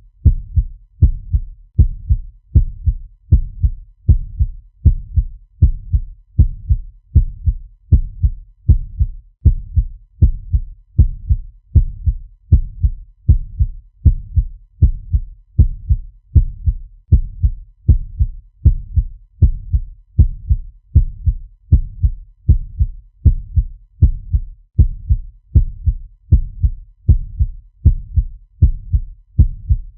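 Fast heartbeat sound effect: low, deep heartbeats repeating in an even, fast rhythm without a break.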